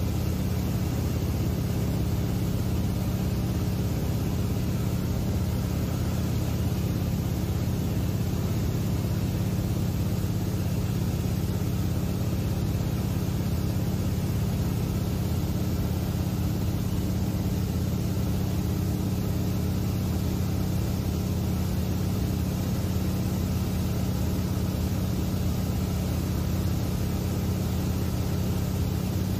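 Steady engine and propeller drone of a small high-wing seaplane in cruise, heard inside the cabin, with a constant low hum.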